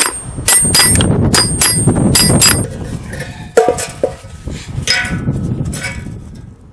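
Hammer striking perforated sheet-steel plates: about seven sharp blows that ring high in the first two and a half seconds, then a few single duller metal clanks as the steel is handled.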